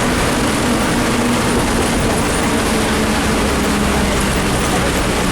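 Public bus driving in heavy rain: its engine runs steadily under a dense, even hiss of rain and road noise.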